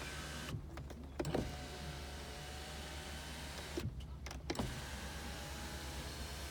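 Electric sunroof motor of a 2001 Toyota Avalon running with a steady whine, stopping twice, about half a second and four seconds in, each time with clicks and a thump before it runs again.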